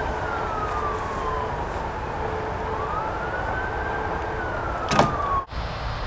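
Emergency vehicle siren wailing, its pitch sliding slowly down, up and down again over a steady background hiss. A sharp knock comes about five seconds in.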